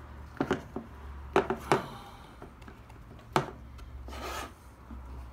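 Hard plastic chainsaw clutch cover, with its steel brake band fitted, being handled: four sharp knocks and clicks, then a short scraping rub a little past four seconds in.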